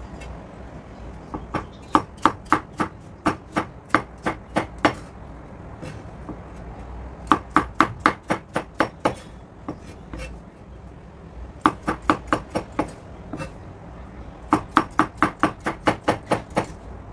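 Cleaver chopping potato into cubes on an end-grain wooden cutting board: four quick runs of knocks, about four or five a second, with short pauses between the runs.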